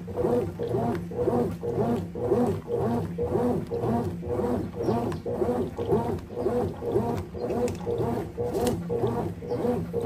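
Consul Maxi Economia 13 kg (CWE13) top-loading washing machine agitating a heavy comforter load: the agitator drive groans through a steady run of back-and-forth strokes, about two a second.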